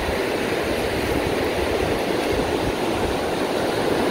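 Ocean surf breaking and washing up over the sand: a steady rushing noise, with wind buffeting the microphone.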